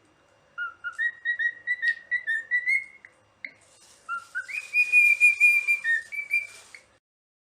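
A parrot whistling a tune in clear, pure notes: first a quick run of about a dozen short notes, then, after a brief pause, a few notes stepping upward into longer held notes, cutting off abruptly.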